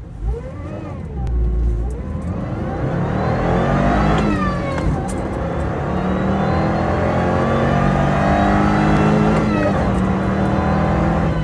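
Supercharged Subaru FB25 flat-four with an Eaton M65 supercharger accelerating hard at full throttle, heard from inside the cabin. Engine pitch climbs, drops at an upshift about four seconds in, then climbs again toward 5000 rpm.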